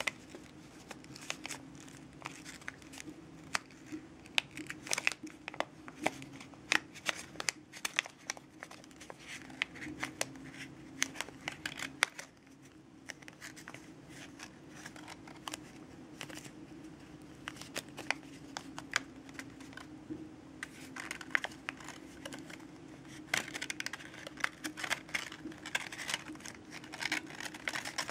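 Sheet of origami paper crinkling and crackling as fingers crease and shape it, in many small irregular crackles. A steady low hum runs underneath.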